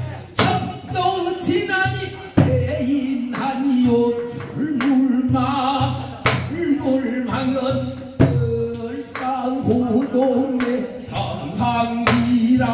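A male voice sings Korean pansori-style folk song through a microphone, with wide, wavering vibrato. It is accompanied by a buk barrel drum, struck with a stick in single sharp strokes every two to four seconds.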